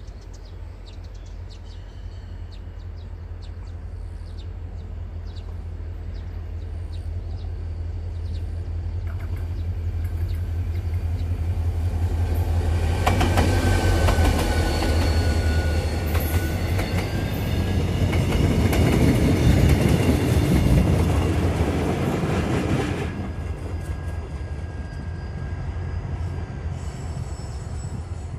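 Korail diesel locomotive 7516 hauling a passenger train past at close range. Its engine's low drone grows as it approaches and peaks about halfway through as the locomotive goes by, with wheels clicking over the rail joints and a thin wheel squeal. The coaches follow, and the sound drops away about eight seconds before the end as the train moves off.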